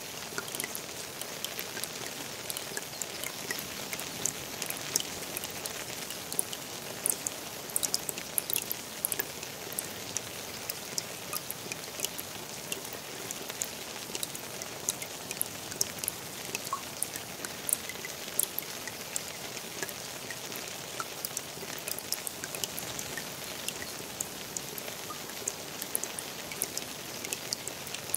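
Steady rain falling into a garden pond: an even hiss with many sharp, scattered drop ticks.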